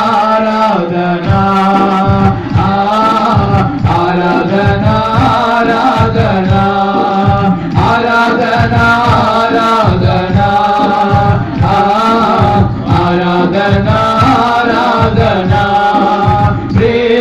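A group of men singing a Telugu worship song into microphones, with hands clapping along.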